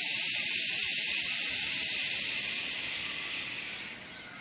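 A person exhaling the qigong liver healing sound: one long breathy "shhh" that holds steady and then fades out near the end.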